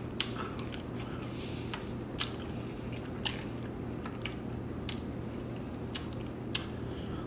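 Close-up mouth sounds of a person eating sauced chicken wings: biting and chewing with sharp, wet clicks about once a second.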